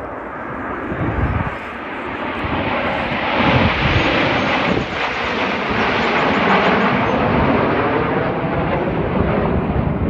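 Jet engine noise from the Snowbirds' CT-114 Tutor jets passing, swelling about three seconds in and staying loud.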